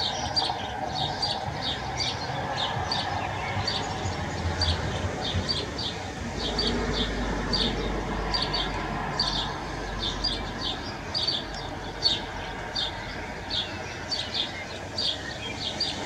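Egyptian goose gosling peeping: a steady run of short, high peeps, two or three a second.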